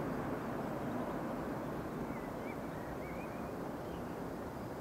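Boeing 757-200 airliner climbing away after takeoff: a steady, low jet-engine rumble, slowly fading as the aircraft recedes.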